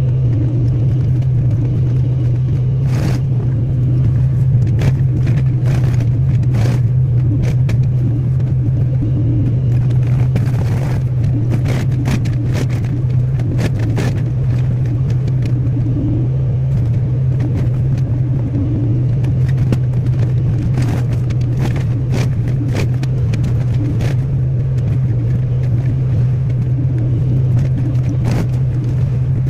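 Excavator's diesel engine running steadily, with scattered sharp cracks and knocks throughout.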